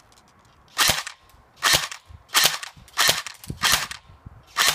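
M4-style electric airsoft rifle (AEG) firing six shots, each a sharp snap with a brief mechanical clatter, spaced a little under a second apart.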